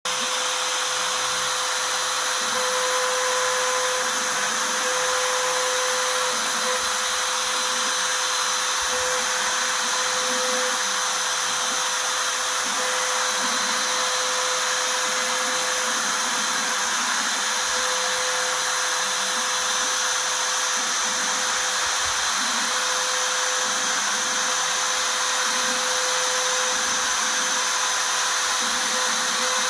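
Desktop CNC router spindle running steadily as its 1/4-inch V-bit engraves lettering into aluminium sheet. It makes an even whine over a constant hiss.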